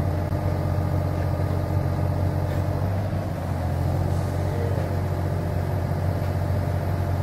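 Yanmar ViO35-6A mini excavator's three-cylinder diesel engine running steadily under hydraulic load as the boom and arm lift the bucket high and lower it again.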